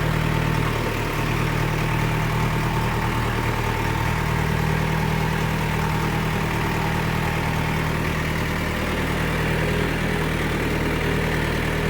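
John Deere 2440 tractor's four-cylinder diesel engine running steadily at a low, even idle.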